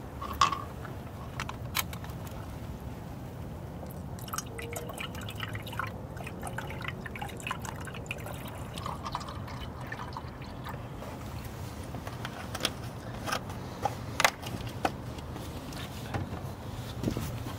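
Coolant being poured from a plastic jug through a funnel into a car's coolant reservoir, the liquid gurgling and trickling. A few sharp clicks and knocks sound in between.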